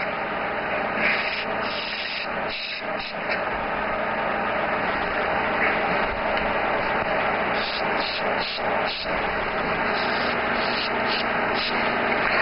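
Airbrush spraying paint in a steady hiss of air that dips briefly a few times as the trigger is eased, over the steady hum of a small motor.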